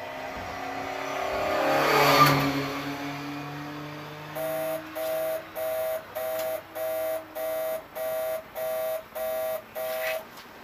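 A race car's engine passes close by, loudest about two seconds in, its note falling as it goes away. Then an electronic warning beep repeats about twice a second for some six seconds.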